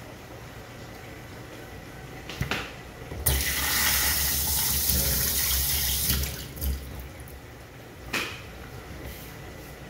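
Kitchen tap running for about three seconds, water splashing in the sink, with a few short knocks of dishes before and after.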